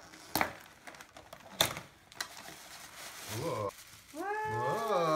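Gift wrapping paper and tissue paper rustling and crackling as a present is unwrapped and a small box opened, with two sharp paper snaps in the first two seconds. A voice exclaims briefly in the last second and a half.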